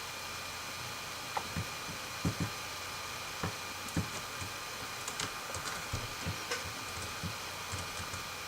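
Irregular light clicks and taps of a computer keyboard, a few keys at a time with pauses, over a steady background hiss.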